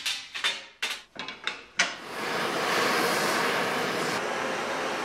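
Aluminium C-channel pieces and clamps clanking and clicking as they are set on a steel plate, a quick run of sharp metal knocks. About two seconds in, a handheld gas torch is lit and hisses steadily, heating the aluminium for brazing.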